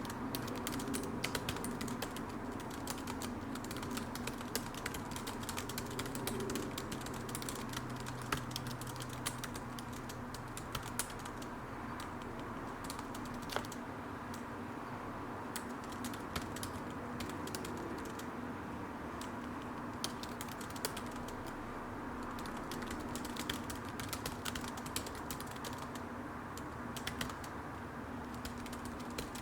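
Typing on a computer keyboard: a continuous, irregular patter of key clicks, now and then a louder one, over a steady background hum.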